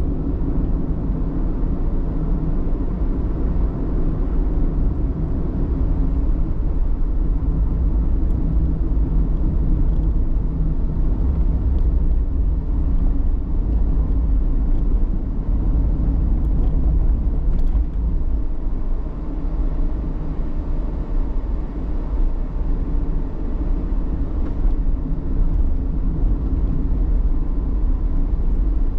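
Steady low rumble of a road vehicle driving along, its engine and tyre noise running without a break.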